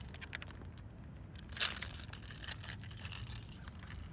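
Faint handling noises: scattered light clicks and rustling over a low steady rumble, with one louder crunch about a second and a half in.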